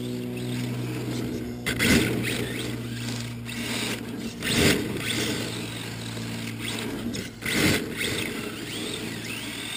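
Radio-controlled drift cars sliding around on painted concrete, their motors whining and tyres scrubbing. There are three louder rushes, about two, four and a half, and seven and a half seconds in, as a car sweeps close by.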